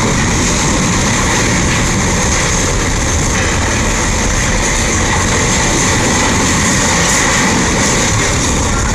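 Steady, loud rushing noise of wind buffeting the microphone over the churning wash of water between two large ships passing close alongside.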